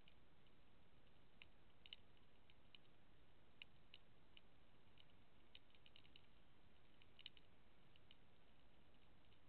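Near silence: faint hiss with scattered faint clicks, irregular and sometimes in quick clusters, the clearest about two seconds in and again about seven seconds in.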